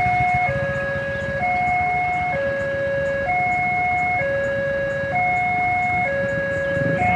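Electronic level-crossing warning alarm sounding a steady two-tone alternation, a higher tone then a lower one, each held just under a second: the signal that a train is approaching and the barriers are down. A low rumble of idling motorcycle and car engines runs underneath.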